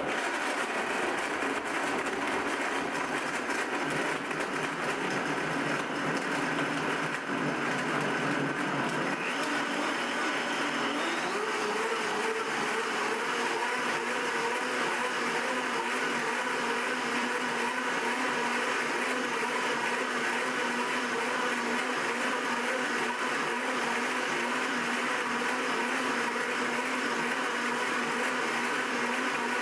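Blendtec Total Blender's 3-horsepower direct-drive motor running its pre-programmed whole juice cycle, blending carrots and ice with water into juice. Steady loud motor sound whose pitch rises about eleven seconds in as the cycle speeds up.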